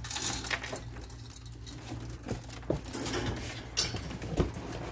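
Dry pet food and a dish clinking and rustling inside a wire ferret cage as a ferret is fed, with scattered sharp clicks and knocks, the loudest about halfway through and near the end.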